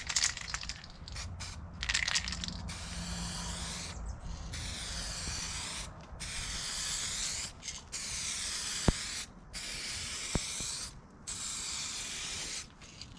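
Aerosol spray can of Rust-Oleum coating spraying the final coat onto a headlight lens, in about six hissing passes of a second or so each with short breaks between them.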